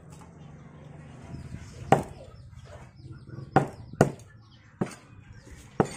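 A cleaver chopping duck pieces on a round wooden chopping block: about five sharp, unevenly spaced strikes, the first about two seconds in.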